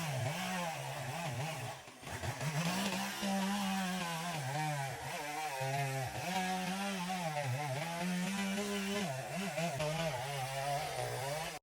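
Two-stroke chainsaw running at high revs, its engine pitch rising and falling repeatedly, with a brief drop about two seconds in.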